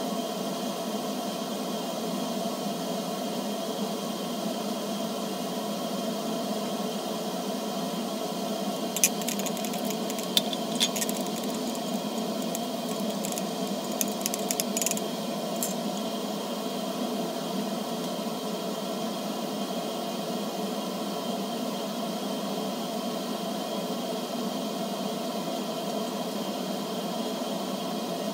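A glass stirring rod clinking against a glass beaker of aluminum can pieces in potassium hydroxide solution: a scattered run of light clicks from about nine to sixteen seconds in, over a steady background hum.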